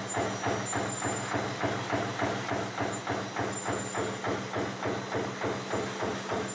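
Razor barbed tape production machinery running: an even mechanical clatter of about three strokes a second over a constant motor hum.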